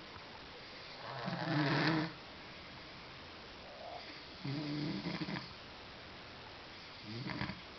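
A sleeping pet snoring: three rasping snores about three seconds apart, the first the loudest and longest.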